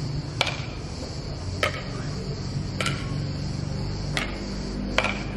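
Badminton rackets striking a shuttlecock during a rally: five sharp ticks, roughly one every second, the last two coming closer together. A steady high-pitched drone runs underneath.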